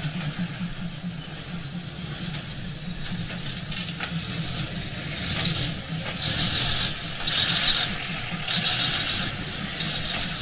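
Diesel railcar running as it approaches slowly along a track, with a steady low rumble. From about halfway through, a higher-pitched sound repeats in pulses about a second long.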